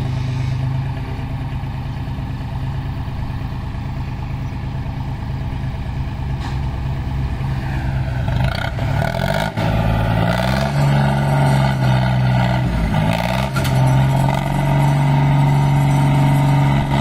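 John Deere 5036D tractor's diesel engine running at a steady idle, then revved up about halfway through, its pitch rising and dipping several times before holding at a higher, louder speed.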